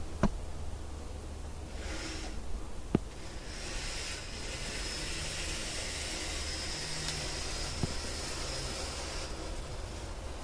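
N gauge model locomotive running on the layout's track: a thin, high, steady motor whine with hiss that starts about three and a half seconds in and stops near the end, over a low hum, with a few sharp clicks.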